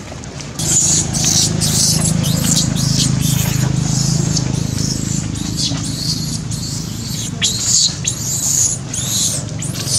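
Baby long-tailed macaque screaming: a rapid string of shrill, high cries that rise and fall, one or two a second, starting about half a second in. A steady low hum sits underneath.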